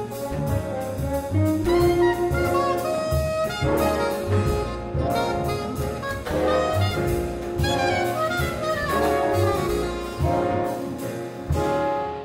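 Jazz ensemble playing: French horns and tuba with soprano saxophone, over piano, guitar, upright bass and drums. The horns hold long chord tones that change about every second, with steady drum strokes beneath.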